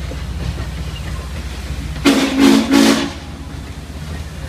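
Steam whistle of Norfolk & Western 611 sounding short, loud blasts about two seconds in, over the steady rumble of passenger cars rolling past.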